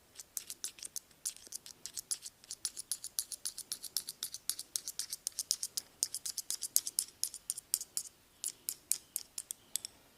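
A barber's hand tools clicking together in a fast, even rhythm, about seven sharp clicks a second, with a short pause about eight seconds in.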